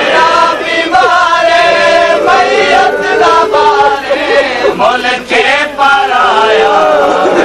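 Male voices chanting a Punjabi noha, a Shia lament, in chorus.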